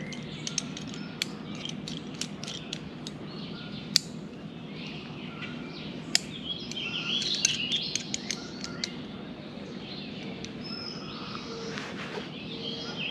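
Songbirds chirping, busiest a little past the middle, with scattered sharp clicks and rattles from handling climbing gear: rope, prusik and carabiner on a hunting saddle's tether. The two loudest clicks come about 4 and 6 seconds in.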